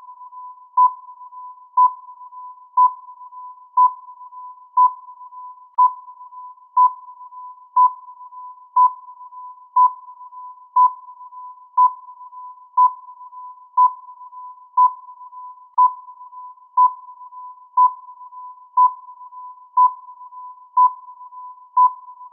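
Electronic countdown-timer beeps: a short, sharp beep once every second, all at the same pitch, over a quieter steady tone at that pitch.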